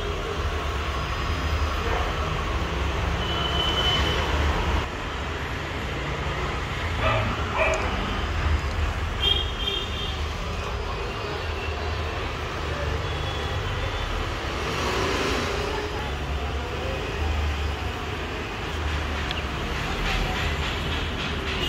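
Steady low rumble of road traffic, with a few short high-pitched tones now and then.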